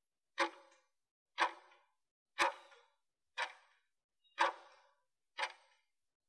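Clock-tick sound effect, one sharp tick each second, marking the last seconds of a workout interval's countdown.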